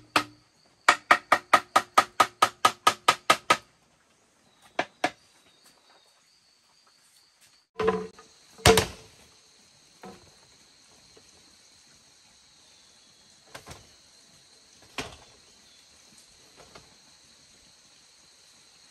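A quick, even run of about a dozen pitched, hollow knocks, four or five a second, as bamboo is struck with a tool, then scattered single knocks. About eight seconds in, a steady high insect drone starts.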